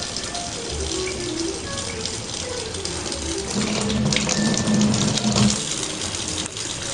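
Kitchen tap running in a thin stream into a sink, a steady splashing hiss, with a light melody of background music. A louder low hum comes in about three and a half seconds in and lasts about two seconds.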